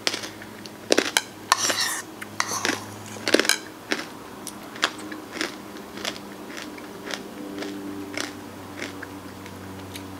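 Close-up eating sounds: a person chewing a mouthful of ice cream with cookie toppings, with many short crunches and wet mouth clicks and an occasional spoon clink. The sounds come thick in the first few seconds, then more sparsely.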